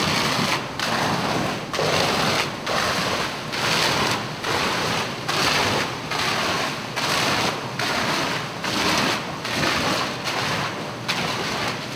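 Fire hose stream at about 30 psi hitting the hot, fire-exposed face of a gypsum sheetrock wall. It makes a loud rushing hiss that rises and falls about once a second as the water tears through the fire-damaged board.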